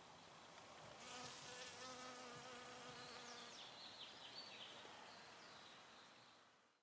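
A bee buzzing close by: a slightly wavering hum comes in about a second in and lasts about two and a half seconds, over a faint hiss with short high chirps. Everything fades out near the end.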